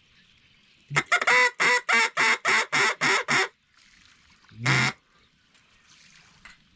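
Mallard duck call blown in a quick run of about ten quacks, about four a second, followed a second later by one more, longer quack.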